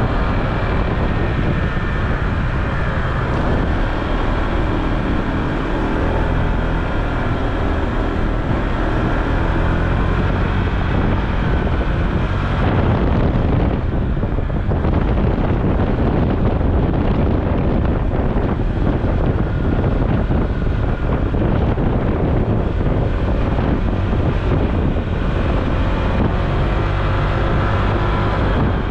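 Honda ADV150 scooter's single-cylinder engine running under way, its pitch drifting up and down, over steady wind noise on the microphone.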